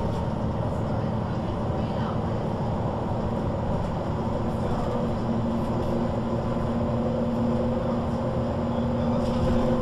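MAN NG 313 articulated bus heard from inside, its diesel engine and ZF gearbox droning steadily as it drives, growing a little louder near the end.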